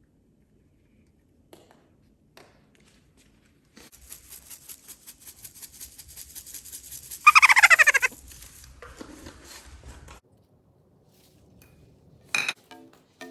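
Parrot growling: a fast rattling grumble lasting several seconds, with one loud squawk in the middle that falls in pitch, the sound of the bird protesting at having its pizza taken away.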